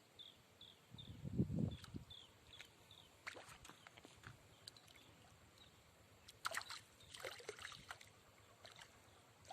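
Water splashing and sloshing in short, irregular bursts, with a low thump about a second in. A short high chirp repeats a few times a second during the first few seconds.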